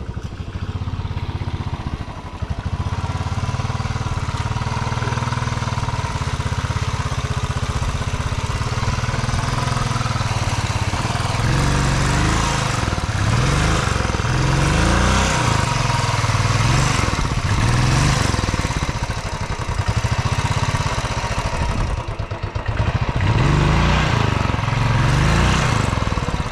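Royal Enfield Classic 350 single-cylinder engine running steadily, then revved up and down in repeated short bursts about halfway through and again near the end, as the bike is pushed through deep mud.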